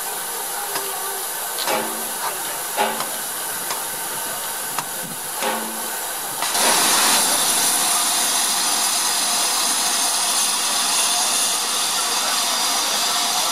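A standing steam locomotive hissing steam, with a few short knocks in the first half. About six and a half seconds in, a louder, steady rush of escaping steam starts and keeps going.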